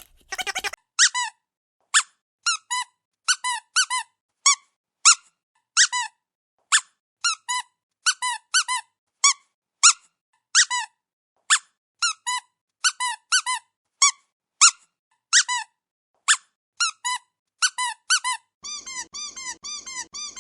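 Rubber squeaky dog toy squeezed over and over: short squeaks, each falling in pitch, coming irregularly about one or two a second. Near the end the squeaks come faster and softer.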